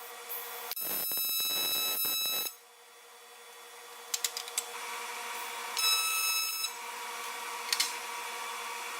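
TIG welding arc on aluminium buzzing in two short runs, the first about two seconds long and the second under a second, over a steady electrical hum. A few sharp clicks fall between them.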